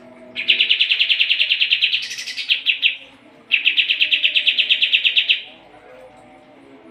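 Kapas tembak bulbul singing in two long runs of fast, evenly pulsed chattering notes, about ten to a second, the first run briefly rising higher near its middle.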